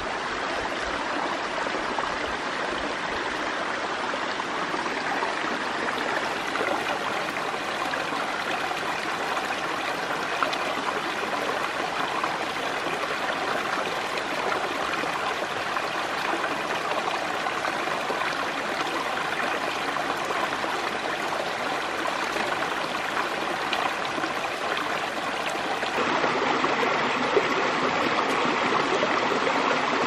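Shallow forest stream running steadily over rocks and stones, a continuous rush of water that gets a little louder for the last few seconds.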